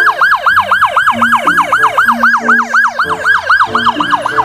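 Police car siren sounding a rapid yelp: a quick falling sweep repeated about five times a second.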